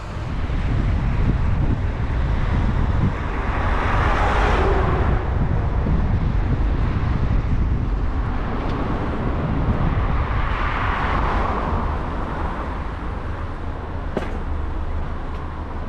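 Steady road and engine rumble from a car driving on a highway, with a rushing hiss that swells and fades twice as oncoming vehicles pass.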